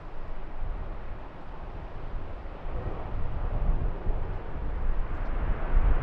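Jet airliner's engines rumbling and growing steadily louder, with wind buffeting the microphone.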